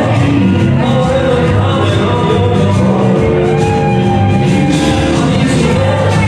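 Dance music playing loud, with a steady beat.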